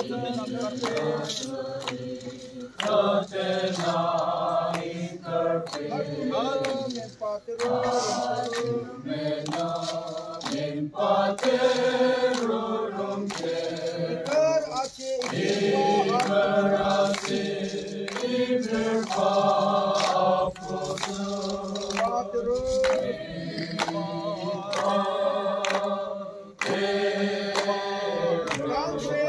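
A congregation of men and women singing a hymn together, unaccompanied, in sustained phrases with brief breaks between lines.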